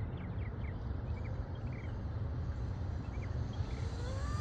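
Steady low rumble with the whine of a racing RC boat's brushless motor (Rocket 2968, 4000KV) rising in pitch over the last second as the boat speeds up across the water.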